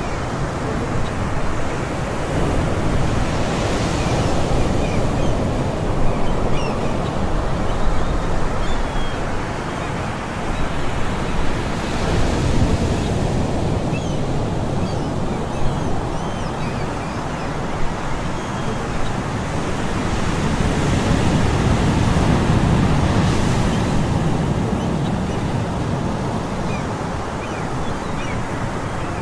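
Ocean surf washing steadily, swelling with a breaking wave about every eight to ten seconds, with faint distant seagull calls scattered through it.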